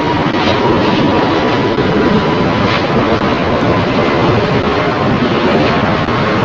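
Twin-engine jet airliner flying overhead: a steady, loud roar from its turbofan engines, with a faint steady whine above it.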